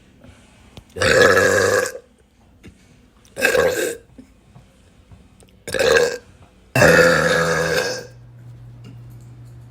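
A woman burping loudly four times in a row, the last burp the longest at about a second. A faint steady low hum follows.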